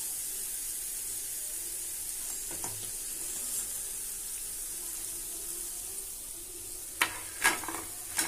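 Hot oil sizzling steadily in a kadhai after a batch of pakoras has been deep-fried, as the pakoras are lifted out with a perforated steel skimmer. Near the end come a few sharp clinks of the skimmer against the plate.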